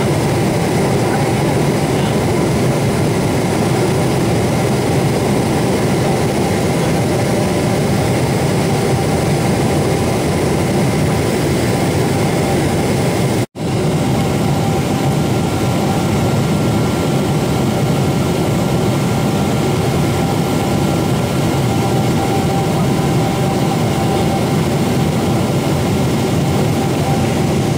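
Steady jet engine and airflow noise heard inside the cabin of a Boeing 777-200, with a faint steady whine over the roar. It cuts out abruptly for a split second about halfway through.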